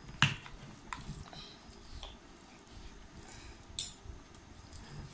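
Scattered clinks, taps and scrapes of a spoon and hands on steel dinner plates, with a sharp knock just after the start and another bright clink near four seconds in.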